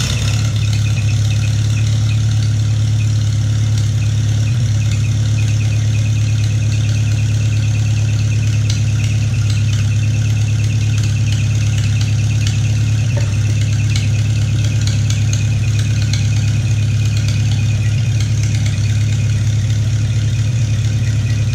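1948-style Farmall Cub four-cylinder flathead engine running steadily on choke, just fired up for the first time after new piston rings and a head gasket. A fast light ticking runs along with the engine's low hum.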